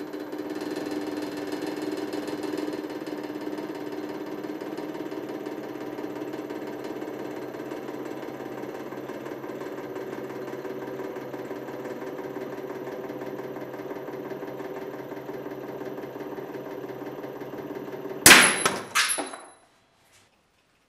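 Hydraulic press pump motor running steadily as the ram presses down on a pair of Knipex combination pliers. Near the end come two or three loud, sharp cracks from the loaded pliers, and then the motor stops.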